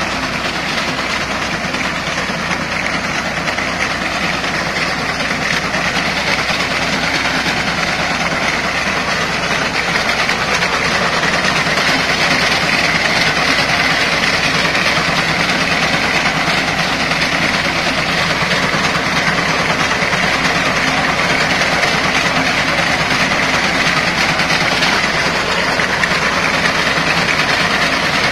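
Tractor engine running steadily while its front-mounted reaper cuts standing wheat, a continuous mechanical clatter that grows a little louder about ten seconds in.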